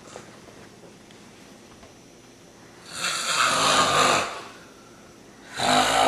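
A person snoring: two long snores, the first about three seconds in and the second starting near the end, each a loud drawn-out rattle on the in-breath with quiet between them.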